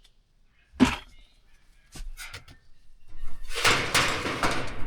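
Work handling sounds: a single sharp knock about a second in, a few light clicks, then a loud rasp lasting about a second and a half near the end, like insulation tape being pulled off its roll.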